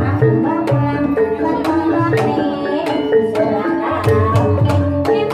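Javanese gamelan music of the kind that accompanies ebeg: hand-drum (kendang) strokes at a steady beat over a layered melody of ringing pitched percussion.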